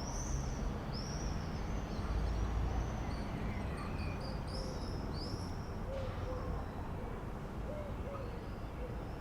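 Outdoor birdsong: many short, high, arching chirps from songbirds, then soft low cooing calls repeating from about six seconds in, over a steady low rumble.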